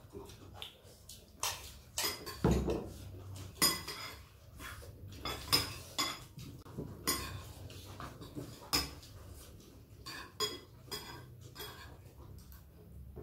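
Metal spoons clinking and scraping against ceramic bowls as several people eat: irregular sharp clinks, one or two a second, a few ringing out more brightly.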